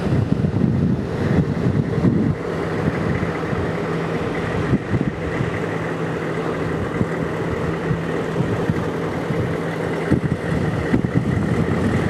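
Wind buffeting the microphone over a steady mechanical hum, like an engine or motor running.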